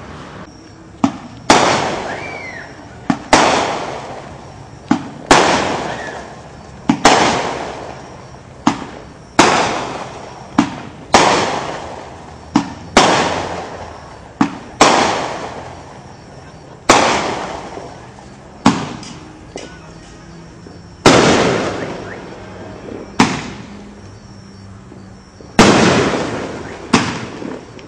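Aerial fireworks going off in a steady barrage: a loud bang about every one and a half to two seconds, each often led by a smaller launch pop and trailing off over a second or so.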